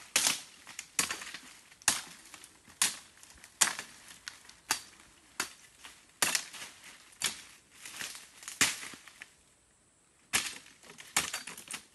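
Machete blows chopping into palm stems and brush, a crisp hit about once a second. After a short pause near the end, a quicker run of three or four hits follows.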